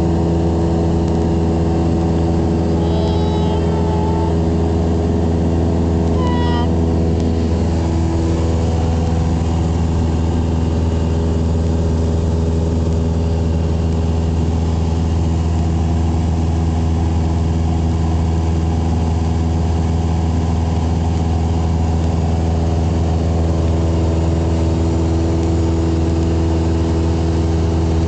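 Cessna 172's four-cylinder piston engine and propeller droning steadily at climb power, heard inside the cabin. The pitch holds steady.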